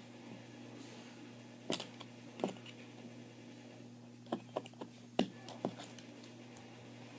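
Scattered small clicks and taps from hands working small craft parts, about seven in all, bunched near the middle and end, over a steady low electrical hum.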